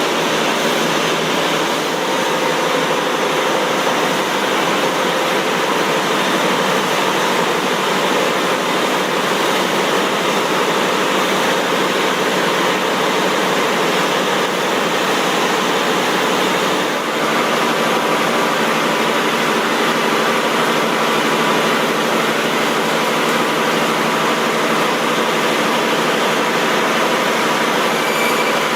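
Steady factory machinery noise on a meat-processing line: a loud, even rush with faint humming tones underneath and a brief dip about two-thirds of the way through.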